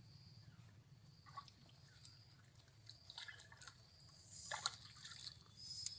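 Faint water splashing and dripping, with a few short sharp splashes: one about a second and a half in, more around three seconds in, and a louder pair near the end.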